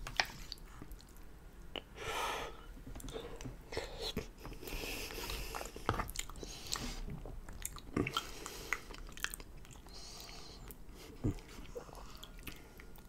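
Close-miked chewing of a mouthful of lasagna, with scattered sharp clicks and scrapes of a metal fork against an aluminium foil pan.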